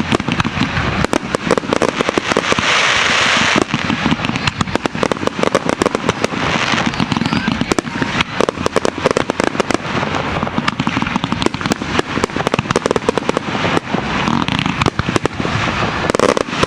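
Aerial fireworks display: a rapid, unbroken barrage of shell bursts and crackling stars, with several surges of dense hissing crackle.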